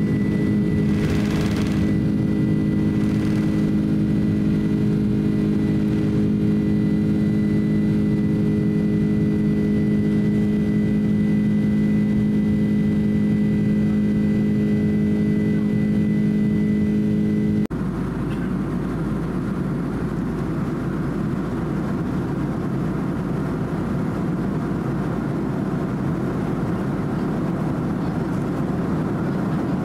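Jet engine noise inside a Boeing 767-300's cabin at takeoff thrust during the takeoff roll and climb: a steady droning hum with a thin high whine, and two brief rushes in the first few seconds. About eighteen seconds in it cuts suddenly to the even, slightly quieter rush of cabin air and engine noise at cruise.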